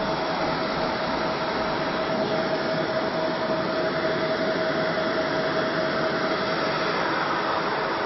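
Fiber laser marking machine running, a steady hiss with a steady mid-pitched hum over it that stops about seven seconds in.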